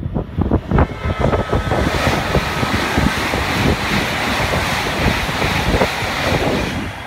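Hokuriku Shinkansen bullet train passing at speed just below, a rushing hiss of wheels and air that swells over the first two seconds, holds, and dies away near the end. A faint high whine comes as it nears, and wind buffets the microphone at the start.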